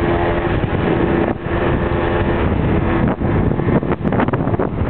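A 50cc scooter's engine running at a steady speed, its tone fading somewhat after about three seconds, under heavy wind rumble on the microphone from the ride.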